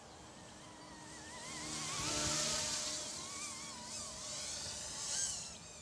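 Eachine E200 Pro Seahawk RC helicopter in flight: the buzzing whine of its battery-powered electric motor and rotor blades, wavering in pitch. It swells to its loudest about two seconds in, fades, and rises briefly again near the end.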